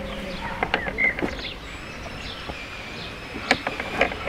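Outdoor garden background: a few short bird chirps over a low steady hum, with scattered sharp clicks and knocks.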